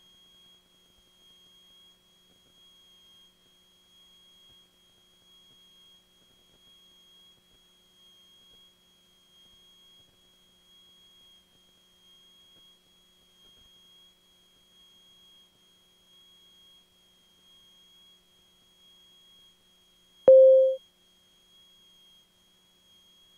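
Faint steady high-pitched whine on an aircraft intercom audio feed, with no engine noise, and one short, loud, low beep about twenty seconds in.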